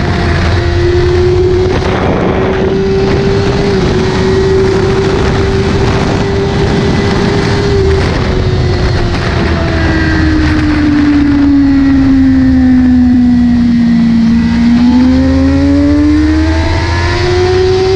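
Sport motorcycle engine running at high revs at over 250 km/h, with heavy wind rush on the microphone. The engine note holds steady for the first half, then falls over several seconds as the bike slows to about 140 km/h. It climbs again near the end as the rider accelerates.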